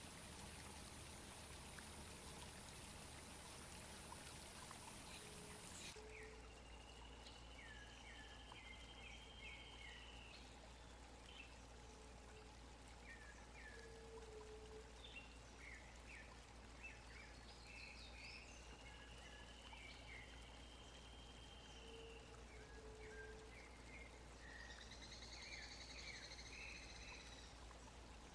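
Faint pond-side ambience: a steady hiss for the first few seconds, then after an abrupt change a quieter background with scattered bird calls. These are two long level whistles of about two seconds each, short falling chirps, and a higher, fuller call near the end.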